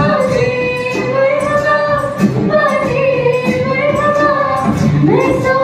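A group of singers, female voices leading, singing long held notes in a live pop medley, sliding up into a new note about five seconds in. Acoustic guitar and hand drum accompany them.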